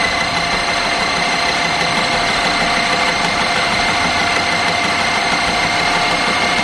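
Small electric motor of a mini portable sewing machine running at a steady speed with a high whine, winding thread onto the bobbin.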